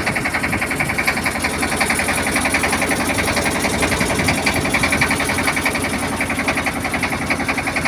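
Boat engine running steadily with a rapid, even pulse.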